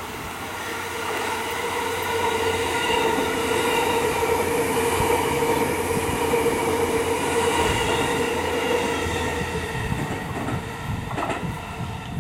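E257 series 500 electric multiple unit passing close by. A steady whine with overtones rides over the rumble of wheels on rail; it swells as the train draws near and fades near the end as the train moves off.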